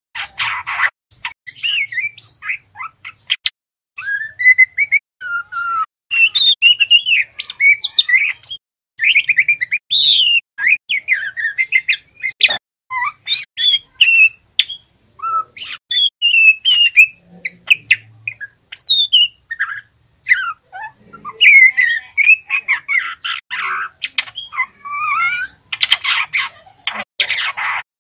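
A juvenile male white-rumped shama practising its song: a rambling string of short whistled and chirping phrases that rise and fall, broken by harsh, scratchy chatter just after the start and again near the end. This is the halting, twittering subsong of a young bird still learning to sing.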